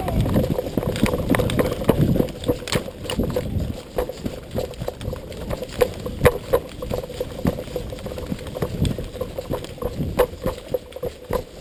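A player moving across an airsoft field with gear rattling and knocking against the body-worn camera: irregular knocks several times a second over a low rumbling, loudest in the first couple of seconds.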